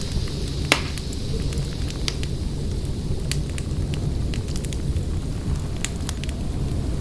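Wood fire burning in a fireplace: a steady low rumble with scattered sharp crackles and pops, one louder pop just under a second in.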